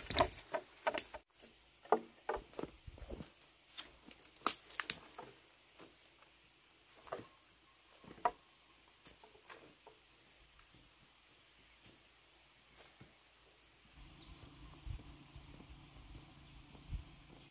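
Scattered snaps and cracks of bamboo and brush as someone moves through a bamboo thicket, thinning out partway through. Near the end come steady crunching footsteps on a dirt path.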